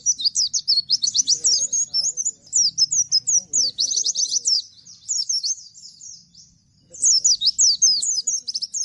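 Bustomi-type pleci (white-eye) singing in the rapid 'nembak' (shooting) style: a fast, unbroken string of high, down-slurred chirps. The song thins out about halfway through, pauses briefly, and bursts out again near the end.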